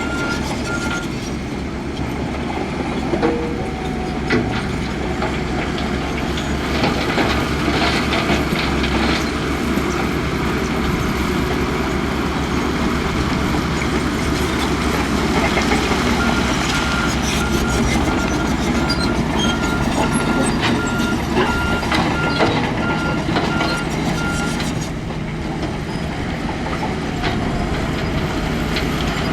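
Heavy earthmoving machinery running steadily under load, with a reversing alarm beeping briefly at the start and again for several seconds from about halfway through. Scattered clanks in the first few seconds.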